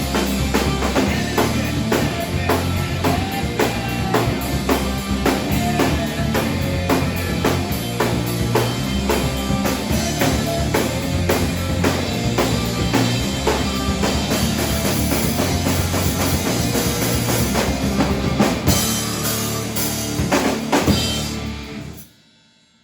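Rock song with a full drum kit, bass drum and snare hits driving a steady beat, cutting off suddenly near the end.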